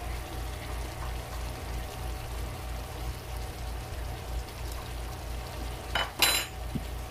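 Chili and bean mixture sizzling faintly in a hot cast-iron skillet, with a steady low hum underneath. About six seconds in, a metal spoon is set down on the countertop with a couple of sharp clinks.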